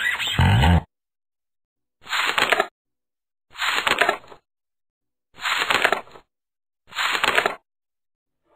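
Music cuts off just under a second in. Then come four short crunching sound effects, each under a second long, with silence between them.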